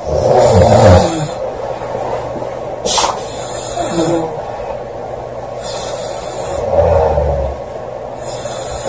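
A girl snoring loudly: a long rasping snore at the start, a second about two-thirds of the way through and a third beginning near the end, with a brief sharp click about three seconds in.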